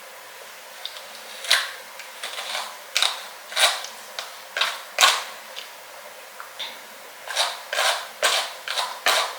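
An irregular run of about a dozen short swishing strokes as tangles are worked out of a synthetic wig, the strokes bunching closer together in the last couple of seconds.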